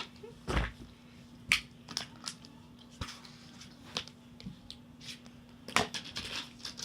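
Scattered small clicks and knocks of slime supplies (bottles, containers, mixing tools) being handled, over a faint steady hum.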